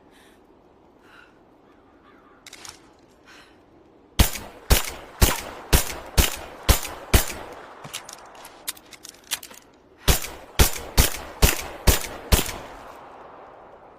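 Nagant M1910 revolver fired through a suppressor: a string of seven sharp shots about two a second, a few light metallic clicks, then a second string of about six shots. A few faint clicks come before the first shot.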